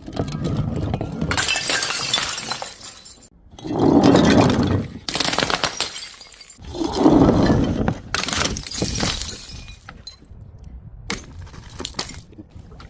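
Glass bottles shattering, with broken glass crunching and clinking in repeated bursts. The loudest crashes come about four and seven seconds in, and it thins out near the end.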